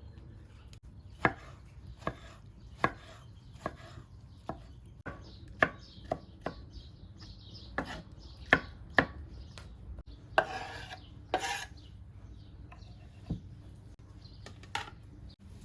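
Knife chopping vegetables on a cutting board: single sharp knocks, about one a second at first and then at an uneven pace. A short scraping sound comes about ten seconds in.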